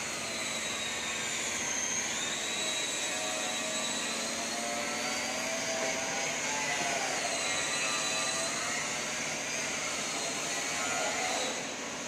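A motor-driven machine running steadily: a rushing noise with a high whine that drifts up and down in pitch, dipping briefly near the end.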